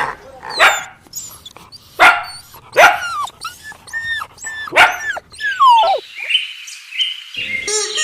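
A dog barking: about five short, sharp barks spaced out, each dropping in pitch.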